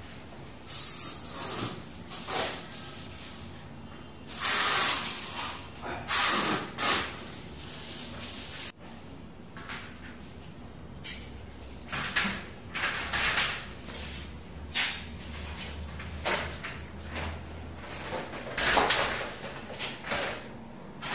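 Aluminium-framed glass sliding door panel being handled and fitted into its frame track: irregular bursts of metal scraping, rattling and knocking, a second or two apart.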